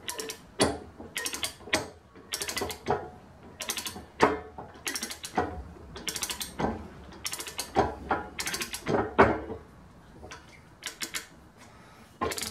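A 3/4-inch drive socket ratchet on an arbor press's pinion shaft being swung back and forth to drive the ram, its pawl clicking in quick runs with a knock at each stroke, about one stroke a second. The strokes stop about nine seconds in, and a short burst of clicks comes near the end.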